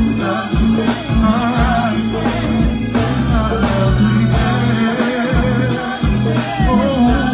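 Live go-go band playing: conga drums and a drum kit beating steadily under a bass line, with a vocalist singing over it.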